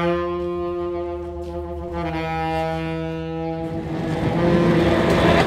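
Music: two long held notes on a horn-like instrument over a low drone, the note changing about two seconds in. Near the end the notes fade and a swelling noise rises in their place.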